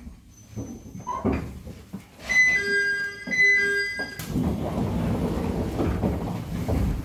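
Two-note electronic door chime in a stopped JR East 701-series train car. About four seconds in, the doors open with a sudden rush of air and a steady noise follows.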